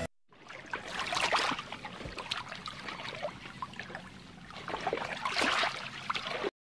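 Water gurgling and splashing, with many irregular small pops; it fades in after a brief gap and cuts off sharply near the end.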